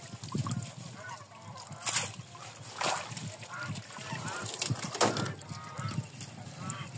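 Waterfowl calling: repeated short honking calls, with three sharp knocks or splashes, the loudest about five seconds in.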